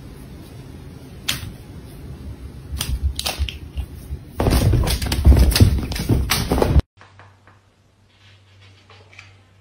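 A plastic shopping bag crinkling and crackling as a cat moves against it, first in scattered crackles, then loud and dense for about two seconds before it stops suddenly. A faint low hum follows.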